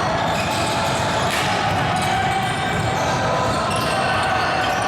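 Basketball game in a gym: the ball bouncing on the court amid steady voices of players and spectators, echoing in the hall.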